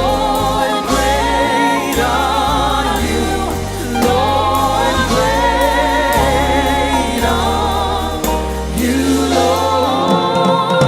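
Live gospel worship music: voices singing together over a band with a steady bass.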